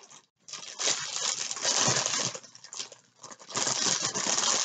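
Bubble wrap crinkling and crackling as it is handled and pulled open, in two bouts with a short lull between.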